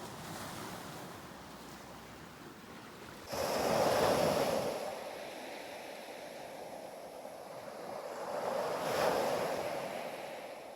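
Ocean surf: one wave breaks suddenly about three seconds in and washes out, and a second wave swells and breaks about nine seconds in.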